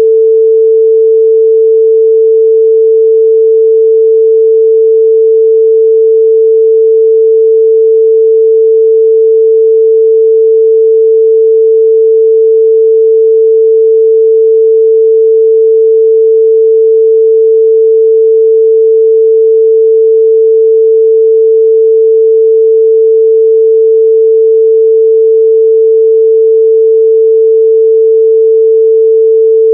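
A steady, loud 445 Hz sine-wave test tone, a single pure pitch held without change.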